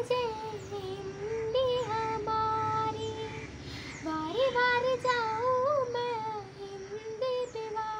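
A girl singing a Hindi song solo, unaccompanied: a slow melody with long held notes and short breaks for breath.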